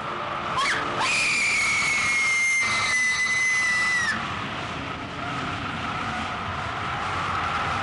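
A steam whistle blowing one long blast of about three seconds, its high pitch sagging slightly before it cuts off, over a steady rushing noise.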